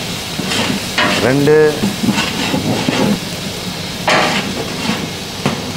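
Chopped onions sizzling in hot oil in a large pot while spoonfuls of ground spice masala are added and stirred in, with a metal spoon scraping and knocking against the pot, once sharply about four seconds in.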